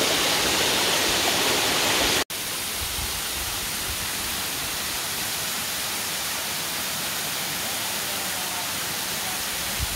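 Waterfall rushing: a steady, even hiss of falling water. It cuts out for an instant about two seconds in and resumes a little quieter.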